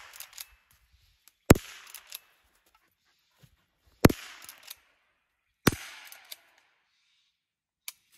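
Henry Golden Boy .22 LR lever-action rifle fired three times, about two seconds apart. Each shot is followed by a short echo and one or two softer clicks.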